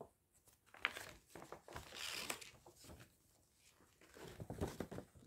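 Faint, intermittent rustling of paper pattern sheets being unfolded and handled, with a few light ticks; the longest rustle comes about two seconds in.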